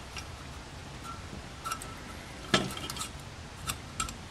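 A few light metallic clicks and clinks from small carburetor parts being handled as the accelerator pump arm is fitted onto a Rochester Monojet carburetor.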